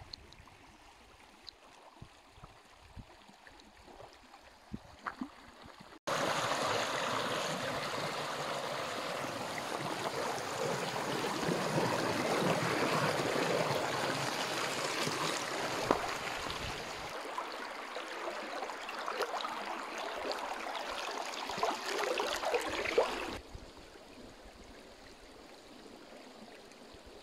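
Shallow river rushing over rocks close by, a loud steady rush of water that cuts in abruptly about six seconds in and cuts out sharply near the end. Before it is a quiet stretch with a few light clicks.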